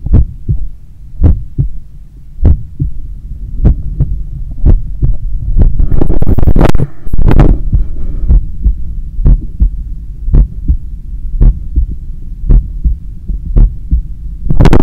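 A human heartbeat heard through a stethoscope chest piece pressed to the chest: a slow, steady resting beat just after waking, about one beat a second, over a low hum. About six seconds in, a loud rubbing noise briefly covers the beats as the chest piece shifts against the skin.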